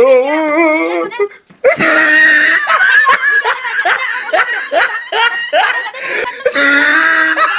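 A person laughing loudly and hard, rapid bursts of laughter between long held cries.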